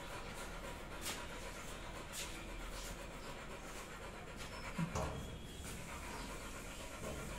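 A beagle panting softly with its mouth open, with a brief thump about five seconds in.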